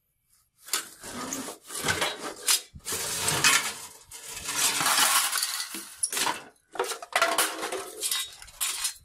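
Rusty scrap-metal pieces clanking, clinking and scraping against each other as they are shifted by hand to dig an old pipe cutter out of a junk pile. The clatter starts about half a second in and goes on in a string of rattles with short pauses.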